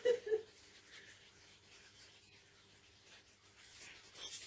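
Mostly quiet room tone after a short bit of voice at the start. Near the end a soft rubbing starts: a hand rubbing a wax strip pressed onto a leg to warm the wax.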